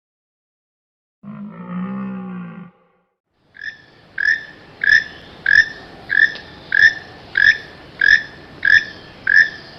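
Animal calls: one drawn-out low call about a second in, then, after a short gap, a string of short, evenly repeated higher calls, about three every two seconds, over a steady hiss.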